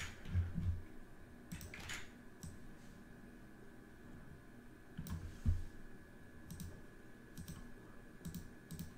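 Computer mouse clicks and keyboard keystrokes, scattered and irregular, with a few soft low thuds among them, from working a spreadsheet: cutting, pasting and opening a sort menu.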